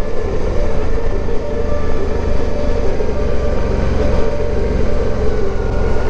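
Suzuki V-Strom DL650 XT's 645 cc V-twin engine running at a steady, even pace as the motorcycle is ridden, heard from on the bike.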